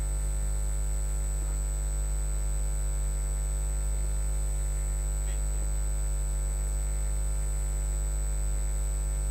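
Steady electrical mains hum from a sound system, with a thin high-pitched whine over it.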